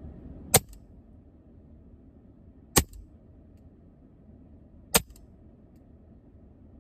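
Three shots from an EDgun Leshiy 2 PCP air rifle, each a sharp crack, about two seconds apart.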